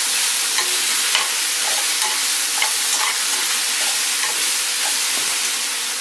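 Mushrooms, red onion and garlic frying in olive oil in a pan, with a steady sizzle and scattered light scrapes and taps of a utensil stirring them.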